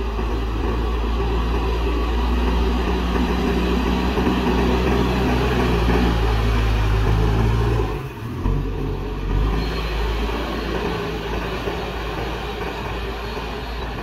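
JCB backhoe loader's diesel engine running steadily under load as the front bucket pushes a pile of soil. The sound breaks briefly about eight seconds in, then carries on a little quieter.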